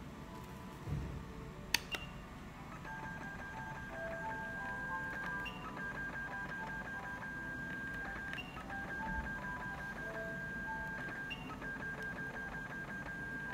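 3D HIFU face-lifting machine beeping rapidly as its handpiece fires lines of focused ultrasound pulses into the skin. There are four runs of about two and a half seconds each, separated by short gaps, and each run begins with a short higher beep. The beeping is the sign that the handle is working.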